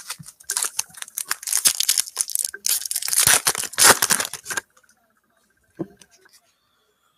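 A Panini Donruss Optic football card pack being torn open and its wrapper crinkled, a dense crackling tear that stops about four and a half seconds in.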